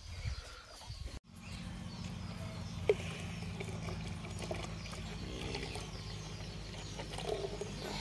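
Birds chirping over a steady low hum, with one sharp click about three seconds in.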